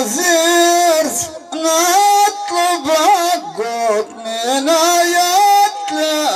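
A man singing solo, unaccompanied, in Amazigh tandamt sung poetry. He holds long notes that bend and waver, with short breaks between phrases.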